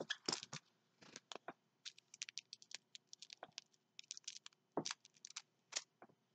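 Small plastic bags of diamond painting drills crinkling and clicking as they are handled and sorted, in short irregular bursts.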